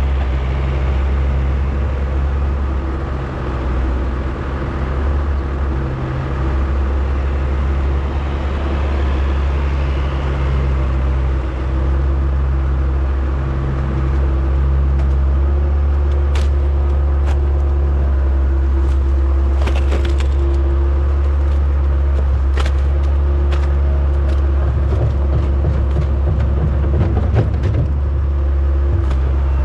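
Diesel engine of a John Deere skid steer running steadily at working speed. In the second half there are scattered sharp clicks and knocks.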